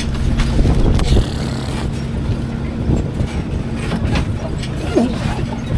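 Open-back truck driving along, heard from the back where passengers stand: a steady engine hum with the noise of the ride.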